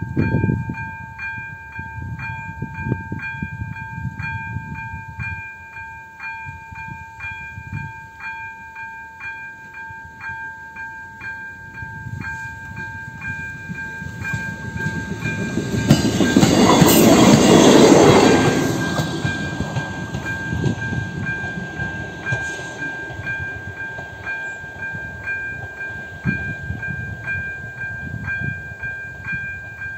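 AŽD 97 level-crossing warning with its electronic bell (type Elektronický 02) ringing a steady repeating chime, a little under two strokes a second. About sixteen seconds in, a train passes over the crossing, rising to a loud rush for a couple of seconds and then fading, while the bell keeps ringing.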